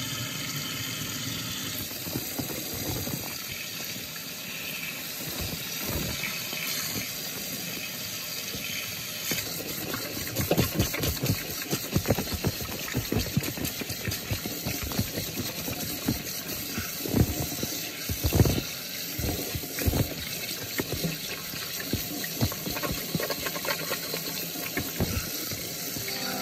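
Tap water running steadily into a stainless steel sink over the drain. From about ten seconds in, hands are rinsed under the stream and the water splashes irregularly.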